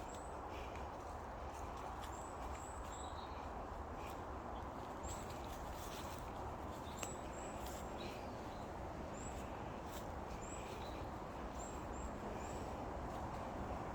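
Small woodland birds calling with short, very high chirps, repeated many times, over the scuff of footsteps walking along a woodland path.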